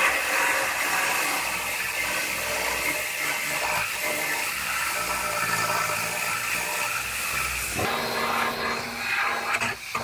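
Pneumatic belt sander grinding the sheet-metal edge of a car's rear body panel: a steady, loud, hissing grind. About eight seconds in it gives way to a steadier, pitched buzz of a pneumatic air saw starting to cut the panel.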